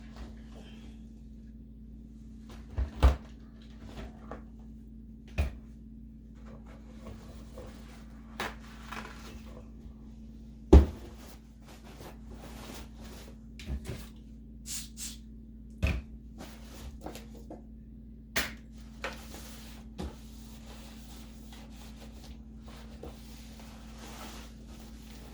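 A kitchen drawer and the things in it being handled: a string of scattered knocks, clunks and clatters, the loudest about 3 and 11 seconds in, over a steady low hum.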